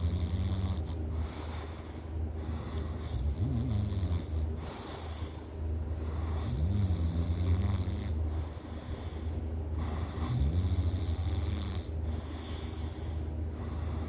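A sleeping person snoring: a low, rattling snore that carries on almost without a break, with a few pitched notes in the breath that rise and fall.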